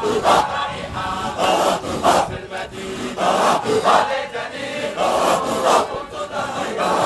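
Group of men chanting a Sufi dhikr together, a short devotional phrase repeated over and over in a steady rhythm.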